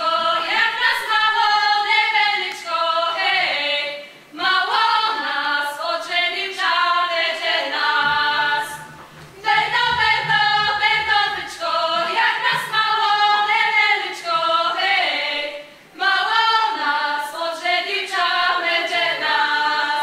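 A group of girls and young women singing a Lemko folk song together in sung phrases, with short pauses about 4, 9 and 16 seconds in.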